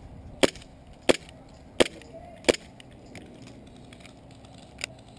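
Airsoft gunfire: four sharp single snaps about two-thirds of a second apart, then a fainter one near the end.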